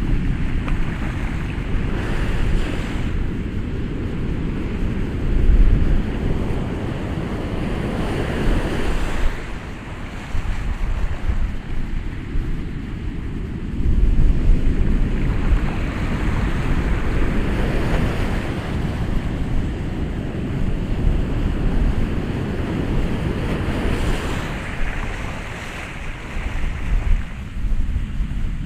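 Ocean waves breaking and washing ashore, swelling louder every few seconds, with wind rumbling on the microphone.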